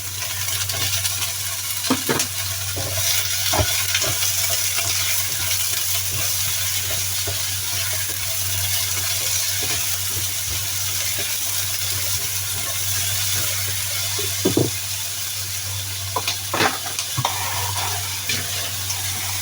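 Food sizzling in a hot frying pan as it is stir-fried, a steady hiss with a few sharp clicks of the utensil against the pan. A steady low hum runs underneath.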